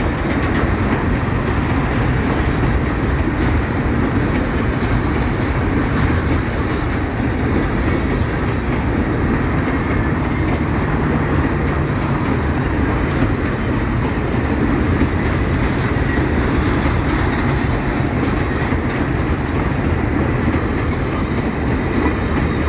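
Empty hopper wagons of a long freight train rolling past close by: a steady, loud rumble and rattle of steel wheels on the rails.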